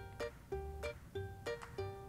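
Background music: a light plucked-string melody of short notes, about three a second, over a soft bass.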